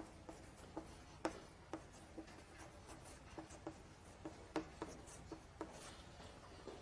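Writing on a board: faint scratching with light, irregular taps, roughly two a second.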